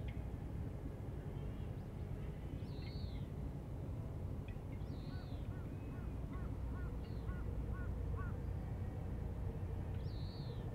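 Birds calling along a river on a spring morning: short, high, downward-arching calls every two to three seconds, and a quick run of about nine softer, lower notes in the middle, over a steady low outdoor rumble.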